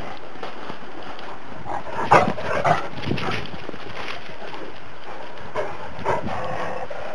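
Šarplaninac dogs giving a few short barks, a cluster about two seconds in and more near the end, over a steady background hiss.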